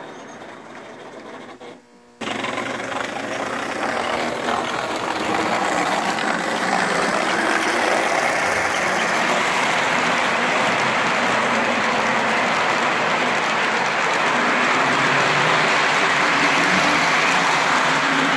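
O gauge model trains running past on the layout's track: a steady rumble and whir of wheels and motors, quieter for about the first two seconds, then louder and even.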